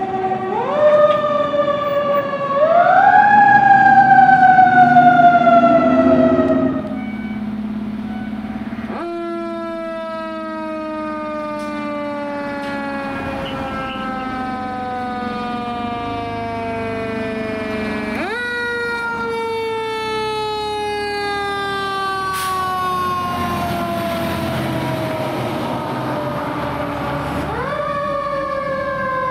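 Fire engine sirens on an emergency run: a loud wail that climbs twice and falls away, then a second siren starting about nine seconds in that winds up quickly and sinks slowly in long wails, winding up again roughly every nine seconds.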